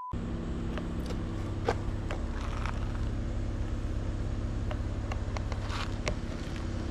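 Car engine running with a steady low hum, with a few faint clicks over it.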